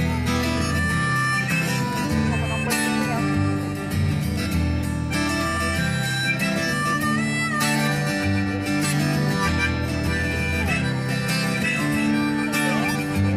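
Live solo acoustic guitar music played through stage speakers, with held melody notes over the strummed chords.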